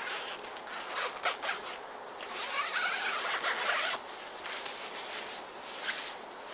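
Zip of a single-skin tent's long side door being drawn open along its length in several strokes, the longest one lasting over a second in the middle, with the tent fabric rustling.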